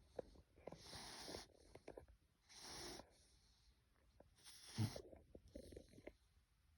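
A bulloxer (bulldog–boxer cross) puppy snoring softly in its sleep: three noisy, hissy breaths about two seconds apart, the third ending in a brief, louder low sound.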